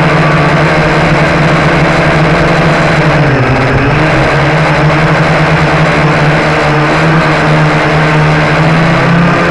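Blade 350 QX quadcopter's four brushless motors and propellers whirring steadily, heard close up from on board. The pitch dips briefly about three and a half seconds in, then comes back up.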